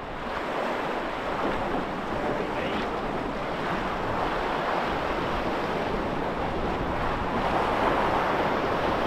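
Sea surf washing and breaking over a rocky shore, with some wind on the microphone; the wash swells a little near the end.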